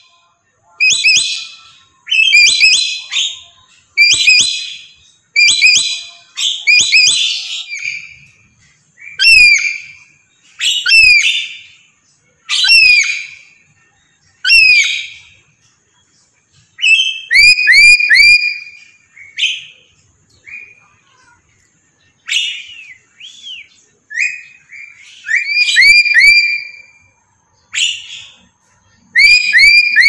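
Parrots calling: loud short calls every second or two, harsh screeches at first, later clearer whistled notes that slide down in pitch, often in quick runs of three or four.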